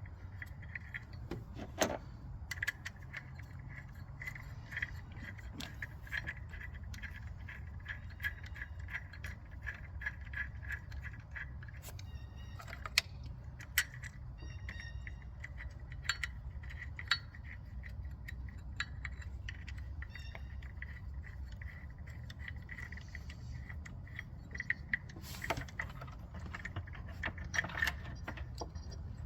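Hand tools and bolts clinking and rattling as the replacement EGR valve is bolted on, with runs of quick, even clicking like a ratchet wrench turning the bolts. A steady low hum sits underneath.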